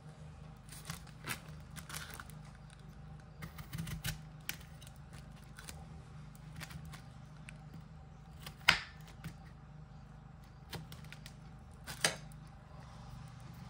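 Scattered light clicks and taps, with two sharper knocks about nine and twelve seconds in, over a steady low hum.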